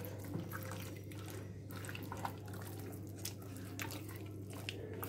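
Wet squelching and smacking of a hand kneading chicken pieces in a thick, sticky spiced flour-and-egg marinade, in short irregular squishes, over a steady low hum.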